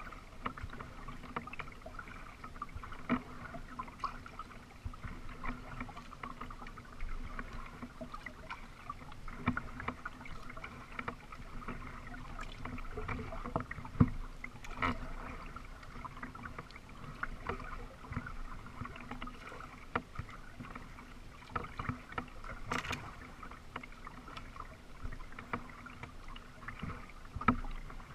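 A kayak being paddled on calm water: paddle blades dipping and dripping, with a few sharp knocks scattered through.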